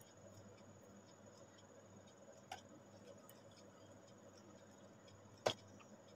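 Near silence with faint room tone, broken by a soft tick about two and a half seconds in and a sharper click near the end as a clear plastic Nataraj 621 ruler is set down on the paper.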